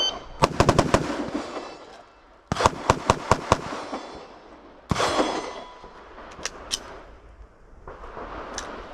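A quick string of about five rifle shots, then after a pause of about a second and a half a second quick string of about five pistol shots, fired during a rifle-to-pistol transition drill. A single sharp bang follows about five seconds in, then a few fainter clicks.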